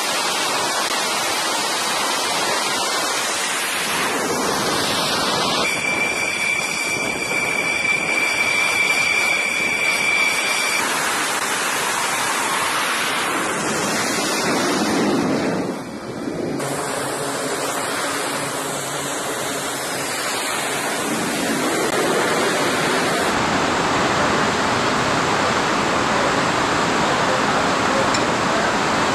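Loud, steady roar of jet engines at high power on a carrier flight deck, as F/A-18 Super Hornets run up and launch. A steady high whine rides on it for several seconds about a fifth of the way in, there are sweeps in pitch, and the roar dips briefly a little past halfway.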